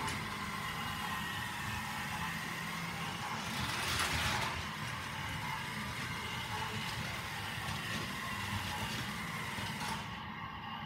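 Battery-powered Plarail toy Series 700 Shinkansen running on plastic track: a steady motor whir with the rattle of its wheels and cars on the track. There is a louder swell about four seconds in, and the high hiss cuts off near the end.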